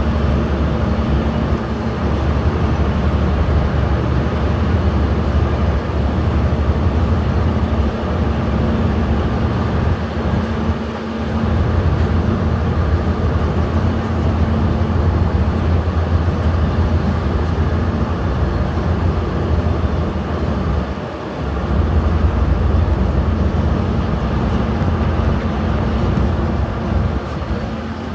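Passenger train coaches running along the track at speed, a loud steady rumble heard from an open coach doorway, dipping briefly twice.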